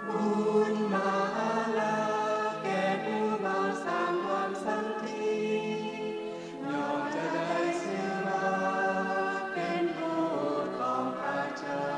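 Background music: a choir singing a slow chant in long, held notes.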